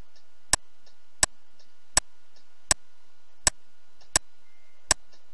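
Computer mouse button clicked at a steady pace, about once every three quarters of a second, seven sharp clicks in all. Each click toggles a simulated sensor input, stepping a PLC up-counter by one.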